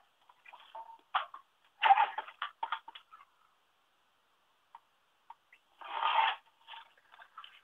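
Short, irregular bursts of rustling and light clatter from paper and craft supplies being handled and moved about, loudest about two seconds in and again around six seconds in.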